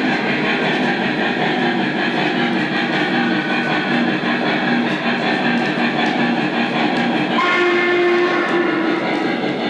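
Lionel Legacy model of a Norfolk & Western Y6b 2-8-8-2 steam locomotive running on three-rail track, a steady mix of its onboard steam sounds and wheel noise. About seven seconds in, its steam whistle sounds as a chord of several notes, held for about two seconds.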